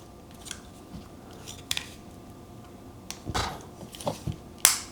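Small plastic camera accessory being handled, the DJI Osmo Pocket 3's extension handle: scattered light clicks and taps, a brushing scrape about three seconds in, and a sharper click near the end.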